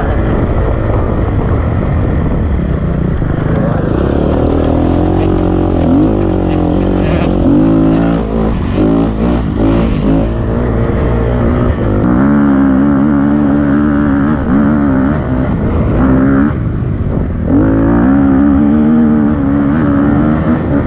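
Dirt bike engine being ridden hard, its pitch climbing and dropping again and again with throttle and gear changes. It holds high revs for a few seconds at a time in the second half.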